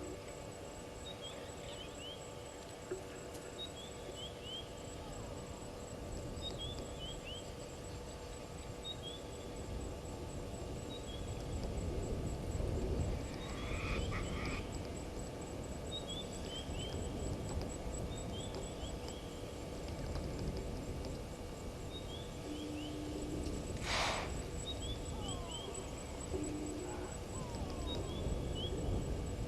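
Waterhole ambience: a bird repeats a short falling phrase of three or four high notes about every two seconds, over a steady high pulsing trill and a low rumbling noise. A brief sharp sound comes about two-thirds of the way through.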